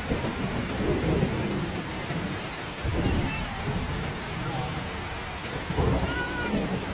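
Heavy rain pouring steadily, with thunder rolling in deep rumbles that swell about a second in, again around three seconds, and near six seconds.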